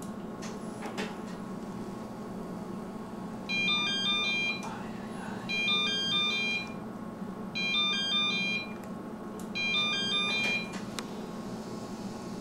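A short electronic beeping tune, played four times about two seconds apart, over a steady low hum.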